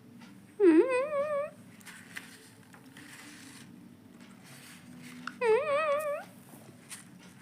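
Indian ringneck parrot giving two short warbling calls, each dipping and then rising in pitch with a wobble, about five seconds apart, with faint clicks between them.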